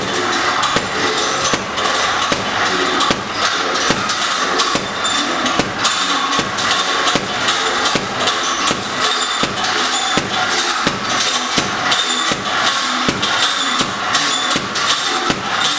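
Boxing gloves thudding into a heavy bag in quick runs of punches, several blows a second, over a steady background hiss.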